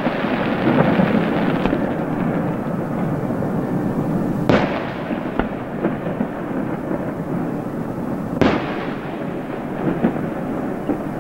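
Aerial fireworks shells bursting: two sharp bangs about four seconds apart, each trailing off into an echoing rumble. Crackling continues between them.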